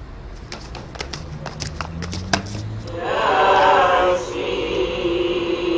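Several light clicks and knocks, then about three seconds in a group of voices starts chanting together in long, drawn-out tones.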